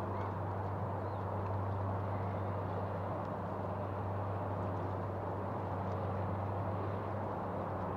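Steady outdoor background noise with a constant low hum underneath and a few faint short chirps.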